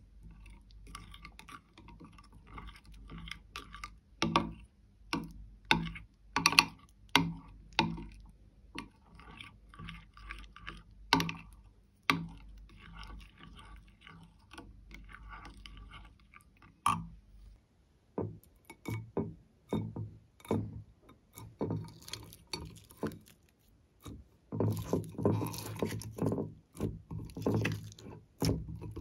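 Metal spoon stirring slime in a glass dish, clinking and scraping against the glass with wet, sticky squelches, in an irregular run of sharp clicks. Near the end, hands stretching and kneading the slime make denser squelching.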